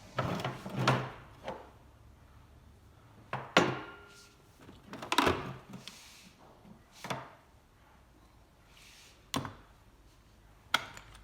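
Separate knocks and clatter of tools and metal parts set down and handled on a workbench, about eight in all. One about three and a half seconds in rings briefly like struck metal.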